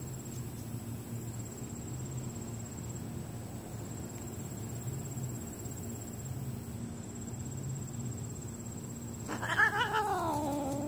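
Steady high-pitched insect trill over a low hum. About nine seconds in, a cat gives one drawn-out meow that falls in pitch over about a second and a half.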